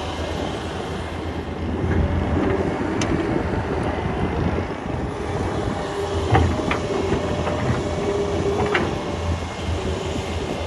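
Solar 130 excavator's diesel engine running steadily under digging load, with a hydraulic whine that comes and goes as the boom and bucket move. Several sharp metal clanks ring out, the loudest a little past the middle.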